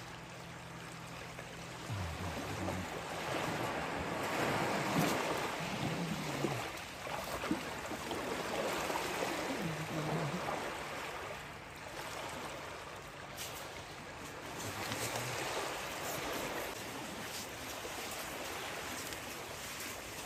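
Small waves washing onto a sandy shore: a steady rushing wash of surf that swells and eases.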